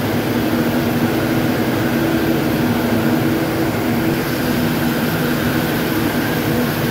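Saurer Zinser Impact 72 XL ring spinning frame running at full production: a loud, steady mill drone of its spindles, with a constant low hum.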